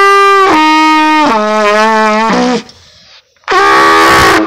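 Trumpet played loudly with the bell close to the microphone: a phrase of long held notes stepping down in pitch, a pause of about a second, then one more long held note.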